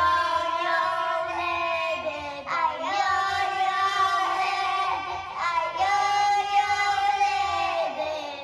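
A young girl singing into a toy karaoke microphone, in long held notes that fall into three phrases.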